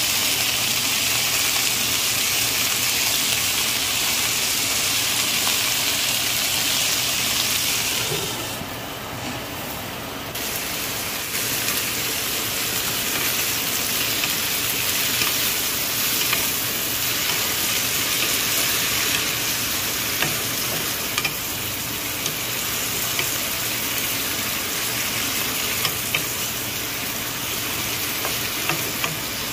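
Purslane and Chinese sausage stir-frying in oil in a nonstick skillet: a steady sizzle that drops off for about two seconds around eight seconds in, then picks up again, with occasional sharp taps of the stirring utensil against the pan in the second half.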